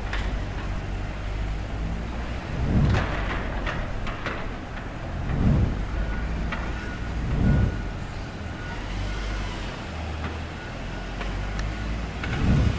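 Steady low rumble of vehicles and machinery at a building site, with wind buffeting the microphone four times. From about six seconds in, a thin high beep repeats on and off, like a vehicle's reversing alarm.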